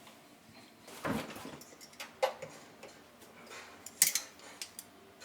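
Scattered light clicks and clinks from handling tools and parts, with a short rustle about a second in and the sharpest click about four seconds in.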